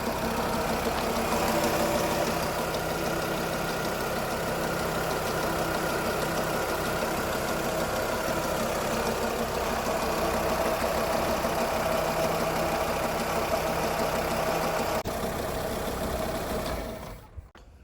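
Volkswagen Polo's engine idling steadily, just refilled with fresh oil. There is a single sharp click about fifteen seconds in, and the sound cuts off abruptly near the end.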